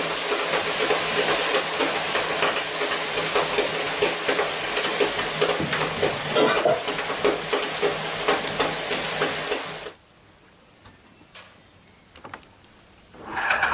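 Water hissing and sizzling off the hot stones of a wood-fired sauna stove, a steady hiss with many small crackles. It cuts off suddenly about ten seconds in, leaving much quieter surroundings with a few faint clicks.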